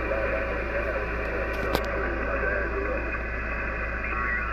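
Icom IC-756PRO HF transceiver's speaker playing 40-metre lower-sideband reception while the main dial is tuned down the band: steady static hiss with muffled, unintelligible sideband voices drifting in and out. A single sharp click comes just under two seconds in.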